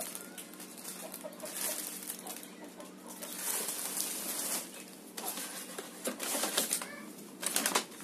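Plastic packaging and mop parts rustling and crinkling as they are handled, in irregular bursts, with the loudest crinkling near the end.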